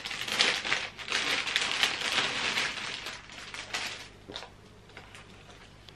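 Packaging crinkling and rustling as a scarf is pulled out and unwrapped by hand, dense for the first four seconds and then dying away to a few last rustles.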